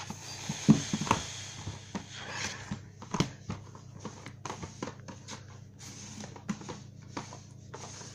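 DVD cases being taken out of a box set and set down on a carpet: scattered clicks and light knocks with rustling from handling. The sharpest knocks come just under a second in and a little after three seconds.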